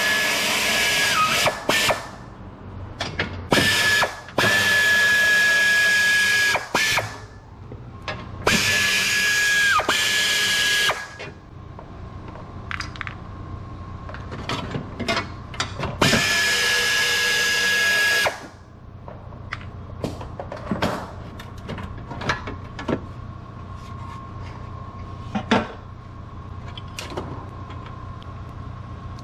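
Power drill running in five bursts of one to three seconds, its motor whine dipping as it stops, followed by scattered clicks and knocks of tools.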